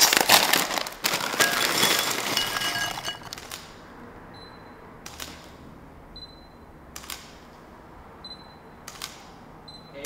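Loud crinkling rustle for about the first three seconds. Then a digital SLR camera's shutter fires several times, once every second or two, each shot preceded by a short high beep.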